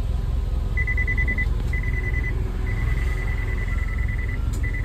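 Suzuki car's reverse parking sensor beeping: a high, steady beep in four stretches of uneven length, the longest nearly two seconds, over the low hum of the idling engine, as the car is manoeuvred in reverse.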